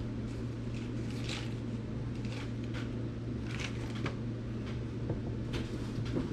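Packaged food items being handled and set down: soft rustles and light taps of packaging, over a steady low background hum.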